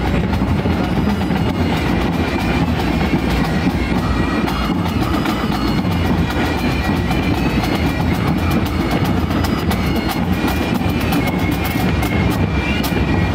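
Marching pipe band playing: several bagpipes sound a melody over their steady drone, with snare and bass drums beating along, the drum strokes showing most clearly near the end.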